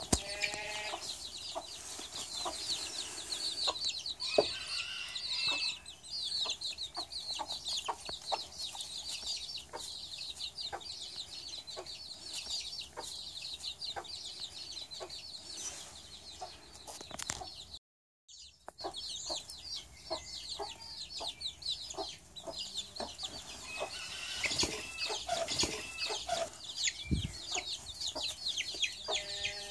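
Baby chicks peeping rapidly and continuously in short, high, falling notes, with a hen clucking now and then. The sound cuts out briefly a little past the middle.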